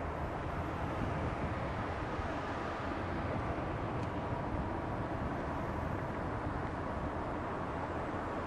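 Steady low outdoor rumble across a wide river, with no distinct events in it.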